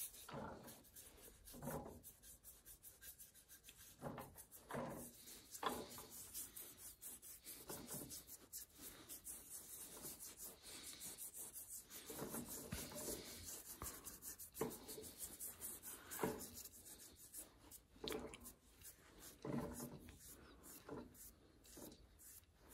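A small brush stroking liquid finish onto a turned wooden bowl: faint, soft rubbing strokes at irregular intervals, roughly one every second.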